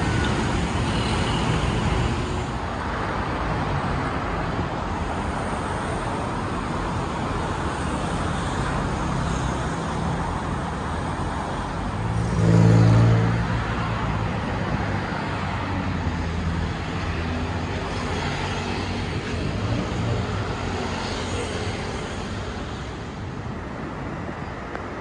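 Busy city road traffic: a steady wash of engines and tyres, with one vehicle's engine swelling louder for about a second about halfway through.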